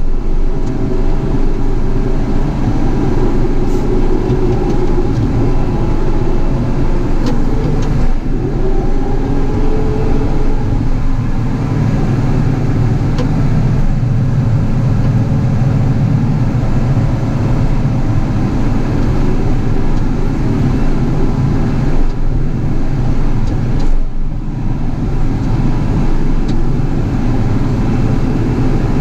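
Caterpillar 973C track loader's diesel engine working under load, its pitch rising and falling every few seconds as it pushes.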